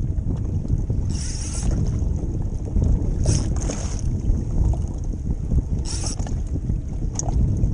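Strong wind buffeting the microphone with a steady low rumble, broken by three brief high hisses.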